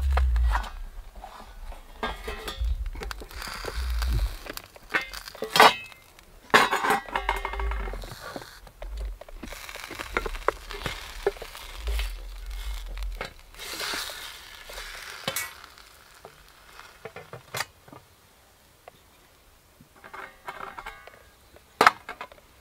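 Metal camping frying pan and its lid clinking and scraping as a wooden spatula works a bannock in the pan and the lid is lifted off and set back, with some sizzling from the pan over a wood-burning stove. Irregular clicks and scrapes, the sharpest about five seconds in and near the end.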